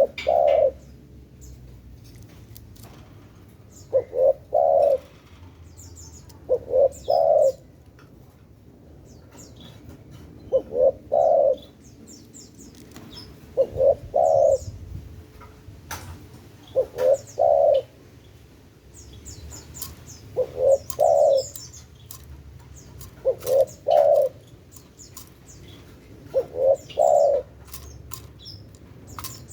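Spotted dove (tekukur) cooing in a regular series of about ten phrases, one roughly every three seconds, each a short note running into a longer one. Faint high chirps of small birds sound between the phrases.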